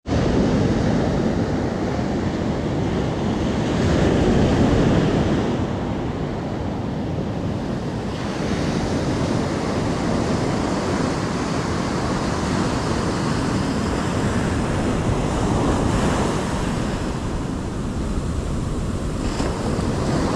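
Ocean surf breaking and washing up a sand beach: a steady rush of water and foam that swells louder about four seconds in.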